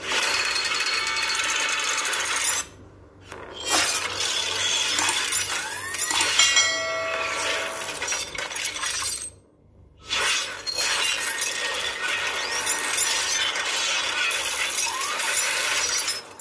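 Designed intro sound effects of glass shattering and crackling, in three long bursts with two short breaks, and a brief glitchy pitched flutter around the middle.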